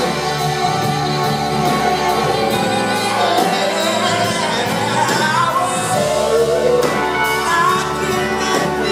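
Live rock band with a horn section: saxophone, trumpet and trombone playing over electric guitar and the rhythm section, loud and continuous.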